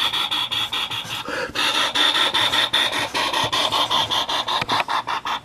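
Sharpie marker tip rubbing over paper in quick, even back-and-forth strokes, a steady rasping scratch.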